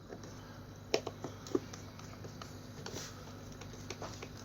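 A few sharp clicks and light taps of small nuts and a meter cover being handled while the nuts are fitted, over a steady low hum.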